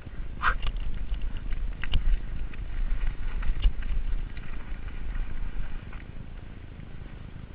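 Giant Reign mountain bike riding down a rough dirt singletrack: a steady rumble of wind and trail vibration on the microphone, with irregular rattling clicks and knocks from the bike over the bumps, easing off in the last second or so.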